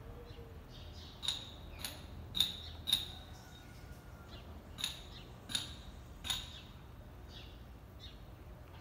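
A quartz crystal skull clicking sharply against a granite countertop as it is turned by hand. About seven clicks come in the first six seconds, with faint bird calls behind.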